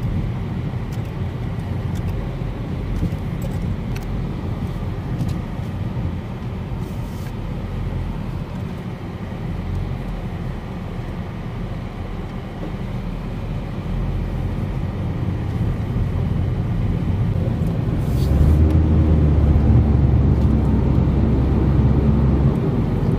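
Steady low rumble of a car on the move, road and engine noise, growing louder about eighteen seconds in.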